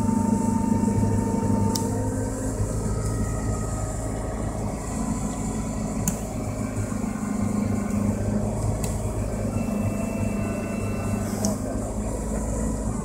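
The inboard/outboard (stern-drive) engine of an aluminum cabin boat running steadily, with a low, even hum and a few faint ticks.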